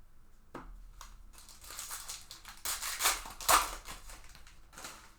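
A foil trading-card pack wrapper being torn open and crinkled, with a few louder sharp rips near the middle.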